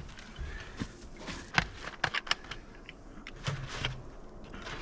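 Scattered clicks and light knocks at irregular intervals, a few with a dull thump, as water-filter canisters and the antifreeze container are handled.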